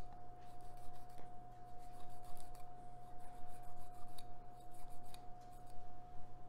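Kitchen knife cutting through a trout's flesh and small bones and scraping against a wooden cutting board as the backbone strip is cut out of the butterflied fish: an irregular run of short scratching strokes. A steady high hum runs underneath.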